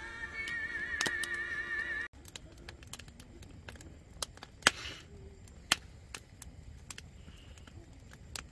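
Background music for about the first two seconds, cutting off suddenly; then a wood fire burning in a metal fire box, crackling with irregular clicks and a few sharp pops.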